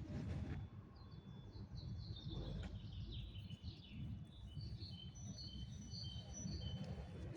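Small birds chirping, short high notes repeated many times from about two seconds in, over a low steady rumble.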